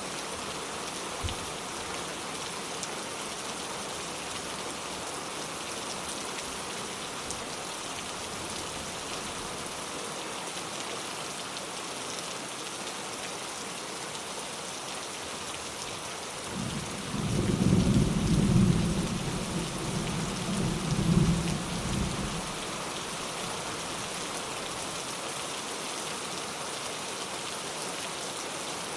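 Steady rain falling, with a roll of light thunder a little past halfway that rumbles low for about six seconds, swelling twice before dying away.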